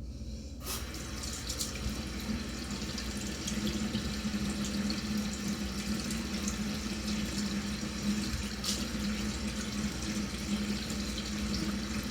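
Bathroom sink tap turned on about half a second in, water running steadily into the basin, with a steady low hum under the rush of water.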